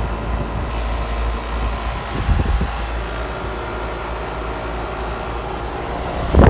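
2014 2.5-ton Concord outdoor air-conditioner condensing unit running: a steady low hum with several steady tones over it from the compressor and condenser fan. It sounds rough, and the owner takes it for a unit that is dying and sounds worse every time.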